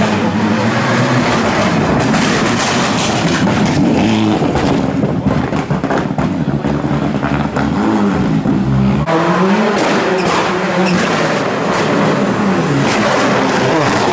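Rally car engines revving hard on a stage, the pitch climbing and dropping again and again with throttle and gear changes. About nine seconds in the sound changes abruptly and another car takes over.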